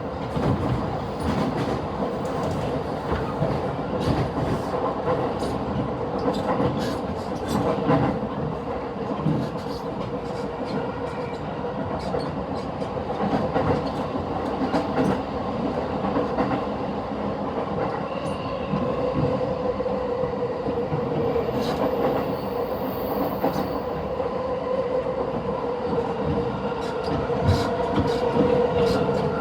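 E233-series commuter train running at speed, heard from inside the car: a steady rolling drone with a constant hum, and irregular clicks of the wheels passing over rail joints.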